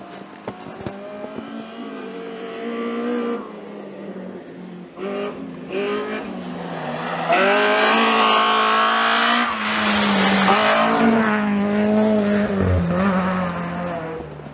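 Rally car engine approaching at speed, revs rising and falling with lifts and gear changes, loudest a little past halfway as the car passes, then fading away.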